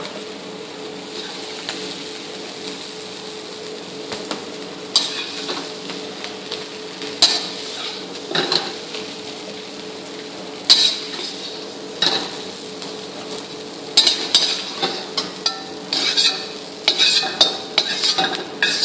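Perforated metal ladle scraping and clinking against a kadai and a steel plate as cooked potato masala is scooped from the pan. The strokes come every second or two at first and crowd together near the end, over a steady sizzling hiss from the pan on the gas flame.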